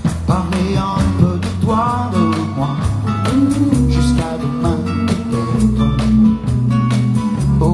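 Live band music from the stage: a man singing into a microphone over guitar, bass and a steady drum beat.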